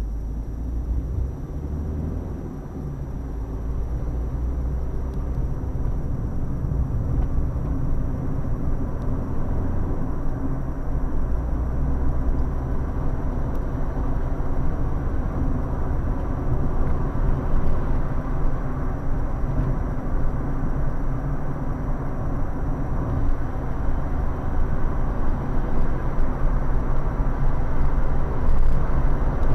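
Road and engine noise inside a moving car, picked up by a dashcam: a steady low rumble of tyres and engine that grows gradually louder as the car speeds up onto the motorway.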